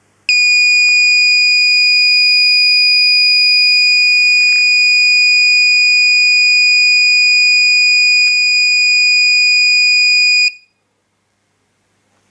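Electronic buzzer of a homemade lost-drone finder sounding one steady, loud, high-pitched tone for about ten seconds, then cutting off suddenly: the beacon is set off by a phone connecting to its wifi hotspot.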